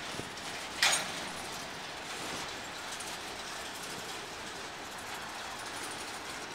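Covered hopper freight cars rolling past on the rails, a steady rolling noise of wheels on track, with one sharp metallic clank a little under a second in.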